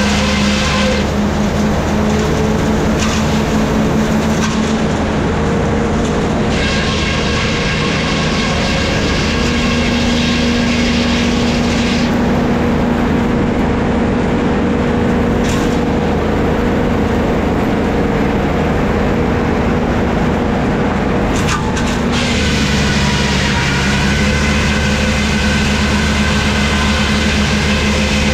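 Vintage sawmill machinery running, a loud steady mechanical drone. Its pitch changes slightly about 9 seconds in and again about 22 seconds in.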